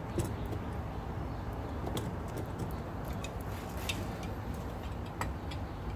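A few light, separate metal clicks and clinks as a C-clamp and a square steel tube are set against a rusty brake caliper, over a steady background noise.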